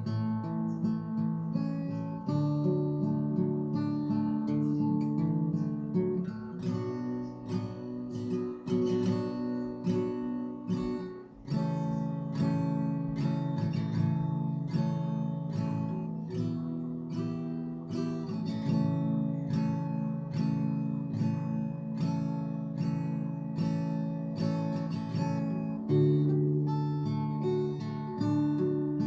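Acoustic guitar strummed steadily through a chord progression, without singing, with a brief pause about eleven seconds in.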